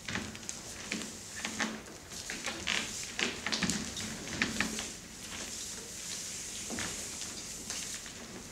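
Bare feet and bodies moving on a studio dance floor: irregular soft scuffs, slaps and knocks, with no music.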